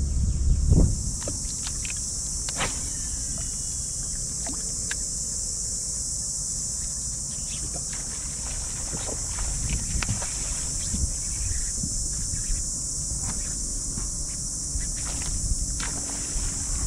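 Steady high-pitched buzz of insects from the mangroves, with scattered light clicks and knocks from handling gear aboard a small fishing boat or kayak, and a louder handling bump about a second in.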